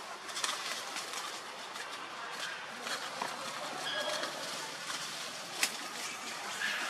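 Dry leaf litter crackling and rustling under a baby macaque's hands and feet as it scrambles over the ground, with a sharper crackle about five and a half seconds in. A few short, high chirps sound faintly around the middle.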